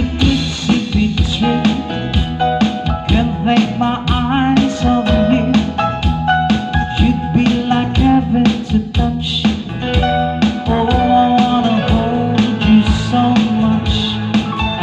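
Loud band music, rock in style, with a steady drum beat under guitar and other sustained pitched notes.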